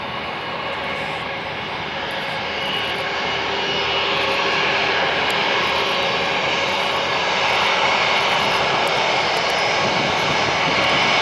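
Turbofan engines of an Embraer E-Jet airliner on its landing roll: a steady jet rush with a high whine through it. The noise swells about three to four seconds in and stays loud.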